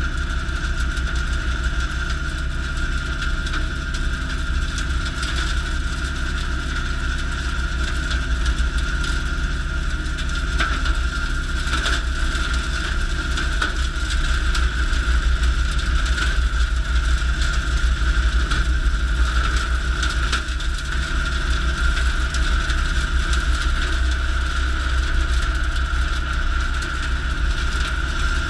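Valtra A95 tractor running steadily under load, driving a Woods BB84X PTO rotary cutter that chops through dense shrubs, with a steady high tone over the engine. A few short cracks come through the middle as woody stems are cut.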